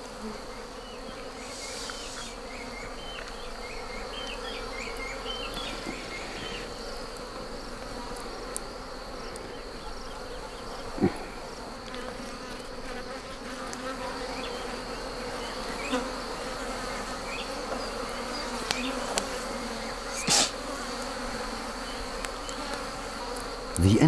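Wild honeybees buzzing steadily in a swarm around their nest in a hollow tree trunk as it is opened for honey, the bees disturbed and defending the nest. A couple of short sharp knocks stand out, about eleven and twenty seconds in.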